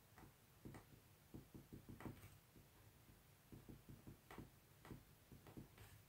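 Near silence: room tone with faint, irregular clicks and ticks.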